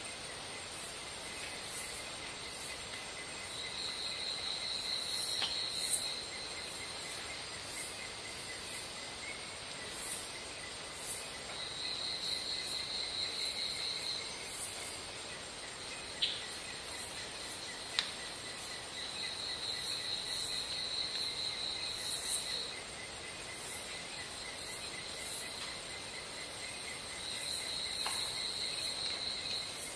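Insects calling: a high, pulsing trill of two to three seconds that comes back four times, over a steady lower chirring and a few scattered sharp ticks.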